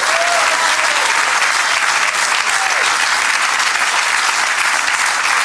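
Studio audience and contestants applauding steadily, with a voice or two calling out over the clapping near the start and again about halfway through.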